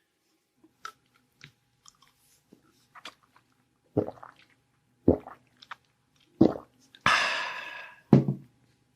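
Close-miked eating and chewing, with small wet mouth clicks at first and then four heavier thumps roughly a second apart. A rustling hiss of about a second falls just before the last thump.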